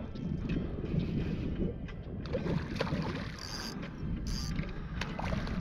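Wind buffeting the microphone and water sloshing around a kayak, with scattered light clicks from a spinning reel being cranked against a hooked fish. Two brief high hissing bursts come near the middle.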